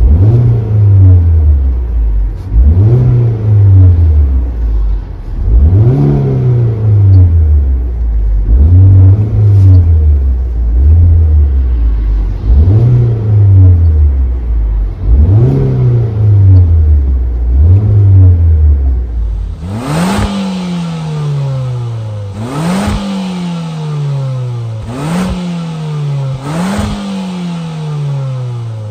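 Car engine revved in repeated quick blips from the accelerator, each rising sharply and dropping back toward idle, about eight times heard from the footwell. About two-thirds of the way through it switches to the exhaust tailpipe, where about five more blips sound with less low rumble and more hiss.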